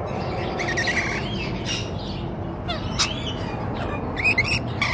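Rainbow lorikeets giving short, high chirping calls at close range as they feed from a nectar cup, with a quick cluster of calls near the end.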